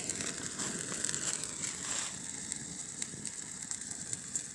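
Flambéed bananas burning in a pan: the spirit's flames crackling and the sauce sizzling, with many small irregular crackles over a steady high hiss.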